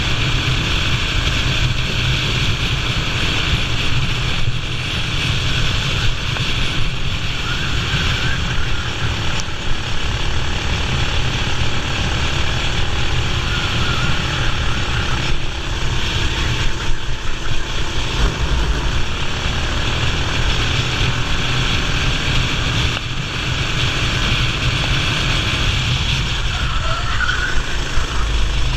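Racing kart engine running at speed on track, heard onboard as a steady, dense din with no clear pitch.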